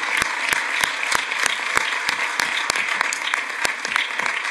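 Audience applauding, a small crowd clapping steadily, with the sharp, evenly paced claps of one nearby person standing out.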